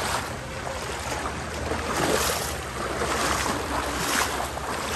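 A motor drones steadily under a rushing noise that swells and fades every second or so.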